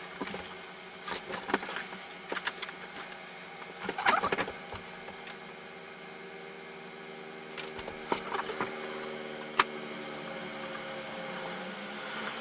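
A steady hum made of several tones, with scattered clicks, taps and handling noises over it. The loudest cluster of knocks comes about four seconds in, and there is a single sharp click near ten seconds.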